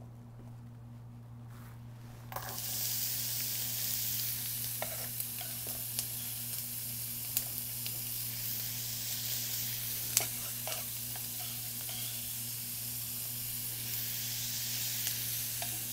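Diced onions going into hot olive oil in a preheated skillet: a frying sizzle starts about two seconds in and keeps going steadily, with a few light taps as more pieces go in.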